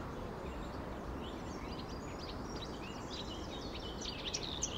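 Birds chirping over a steady outdoor hiss, the short chirps growing denser and louder towards the end.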